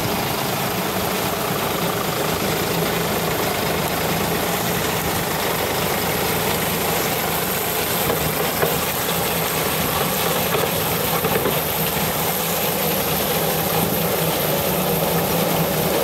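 John Deere 5310 tractor's diesel engine running steadily under load, driving a tractor-mounted sugarcane cutter through standing cane.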